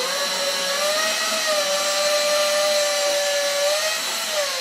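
Drill with a 1/8-inch Allen bit running steadily, backing out a windshield screw, a continuous motor whine. The pitch rises a little as it spins up and sags near the end as it stops.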